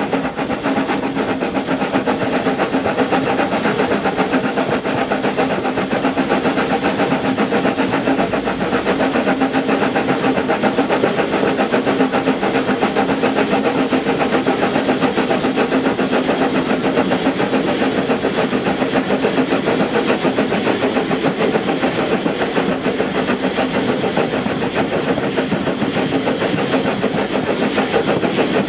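SECR P class tank engine working steam on the move, heard from its footplate: a steady stream of rapid, even exhaust beats over the running noise of the train.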